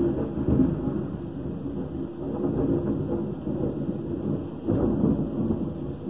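Thunder rumbling loudly over rain, strongest at the start, with a second surge about three-quarters of the way through before it fades.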